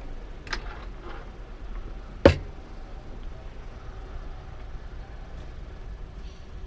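A steady low background hum with a light click and then one sharp knock about two seconds in.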